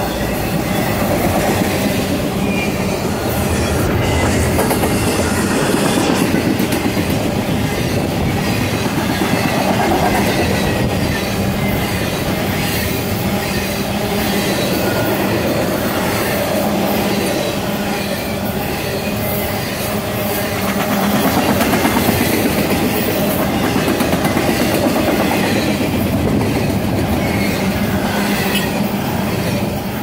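Double-stack intermodal well cars loaded with containers rolling past close by: a steady rumble of steel wheels on the rails, with continuous clickety-clack.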